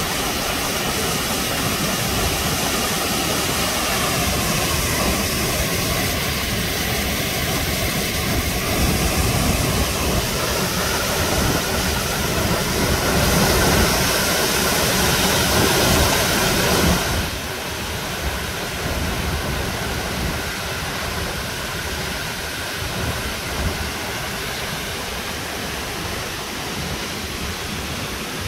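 Large waterfall in flood pouring into a river: a steady, heavy rush of falling and churning water. It grows louder through the middle, then drops suddenly a little past halfway to the lower rush of the fast-flowing flooded river.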